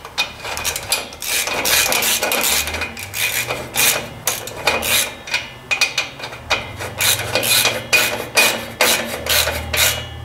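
Metal hand-tool work: a quick, irregular series of clicks and scrapes, typical of a socket ratchet tightening the clamp nuts on a tractor's muffler and tailpipe.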